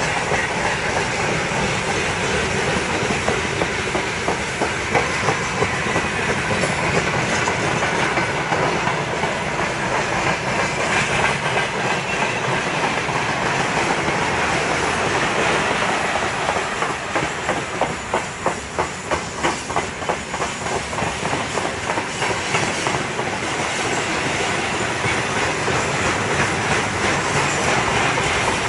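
Freight wagons rolling past with a steady rumble and the clickety-clack of their wheels over the rail joints. About two-thirds of the way through there is a run of sharp, evenly spaced clacks, about three a second.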